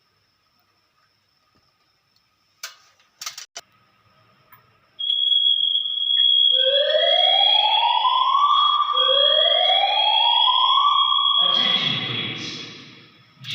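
Fire alarm sounder going off during a smoke detector test: a steady high-pitched tone starts about five seconds in and is joined by two rising whoop sweeps, each about two and a half seconds long. A few clicks come before it, and a rush of noise comes near the end.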